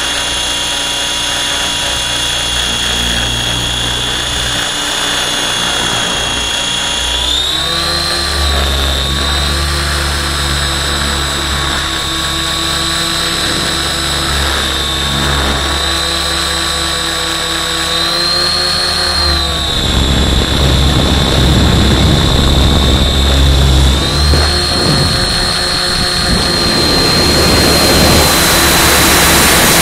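Align T-Rex 700 RC helicopter in flight, heard from a camera on board: a steady high whine from the drive with a low rotor drone beneath. The pitch briefly bends up and back down a few times as it manoeuvres, and rushing wind grows near the end.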